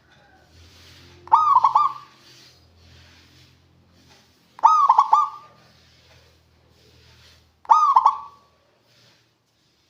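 Zebra dove (perkutut) cooing: three short phrases of quick, rolling notes, about three seconds apart.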